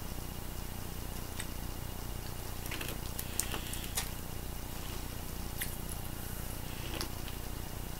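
A few small, scattered clicks and crackles as rainbow Nerds are eaten and their cardboard box is handled, over a steady faint hiss.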